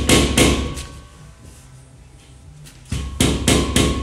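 Rapid hammer blows, about four a second, knocking a flat-pack sideboard's panels together to drive a piece into place. The blows stop shortly after the start and resume near the end.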